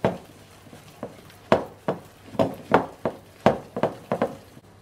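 Wire balloon whisk beating thick banana bread batter by hand in a bowl: a run of irregular knocks and slaps, about two or three a second, as the whisk strikes the bowl and the dense mixture.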